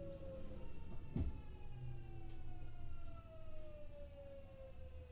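Kintetsu 6400-series electric train heard from inside the car: the traction motors' whine falls steadily in pitch as the train slows, over the rumble of the wheels on the rails. A sharp knock sounds about a second in.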